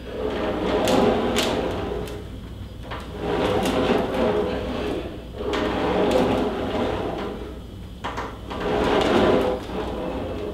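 Ab wheel rolling down and back up a wooden plank ramp over several reps, a rumbling roll on the wood that swells and fades about every three seconds.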